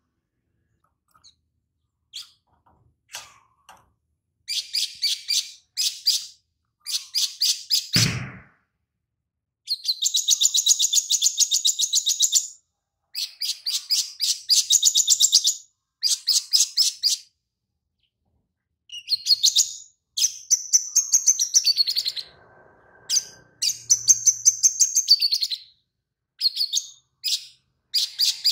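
Caged male olive-backed sunbird (kolibri sogon) singing: fast, high, chattering trills in bursts of one to three seconds with short pauses between them. Its keeper presents the song as filled in with lovebird phrases. A single short low thump comes about eight seconds in.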